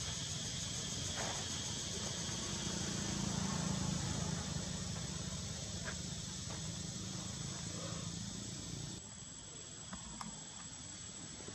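Steady high-pitched drone of insects, with a low rumble underneath that drops off about nine seconds in, and a few faint clicks.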